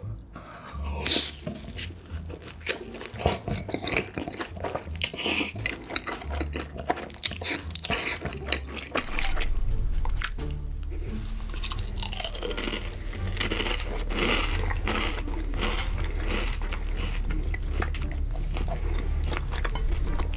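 Close-miked crunching bites and chewing of food, with many short crackles. A steady low hum comes in about halfway through.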